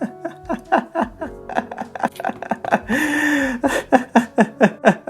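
A long burst of rapid laughter, a quick run of 'ha' pulses each dropping in pitch, broken by one drawn-out breathy note about three seconds in, over background music.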